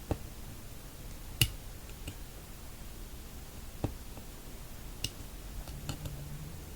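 Scattered sharp clicks of metal tweezers against the iPod Touch 4th generation's metal mid-frame, prying under the glued home button flex cable to peel it off. A few separate ticks come a second or more apart, with a quick cluster of smaller ones near the end.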